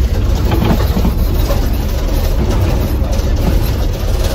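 Steady low rumble and noise of a moving vehicle, heard from on board.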